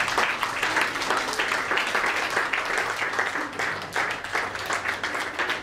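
A small audience applauding: many hands clapping in a dense, steady patter after a sung song.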